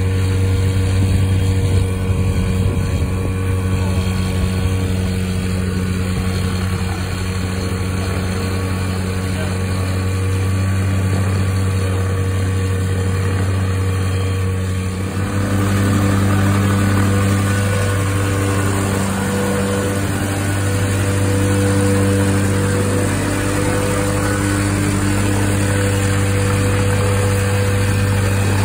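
The Airbike 103 ultralight's Kawasaki 440 two-stroke twin engine running steadily at low speed. About halfway through its tone and level step up a little.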